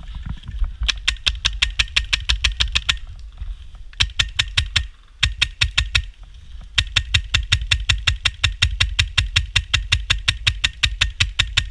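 Airsoft gun firing fully automatic in four bursts of rapid, evenly spaced shots. The longest burst runs through the second half, with short pauses before and between the shorter ones.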